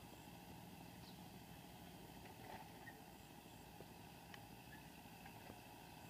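Faint, steady hum of a distant tractor engine running, with a few faint ticks.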